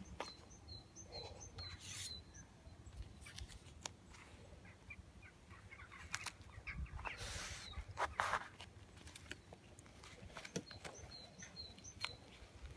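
Duct tape and paper towel crinkling and rustling as a taped face mask is folded and handled on a wooden table, with scattered light taps and a louder rustle about eight seconds in. Faint high bird chirps come twice, just after the start and near the end.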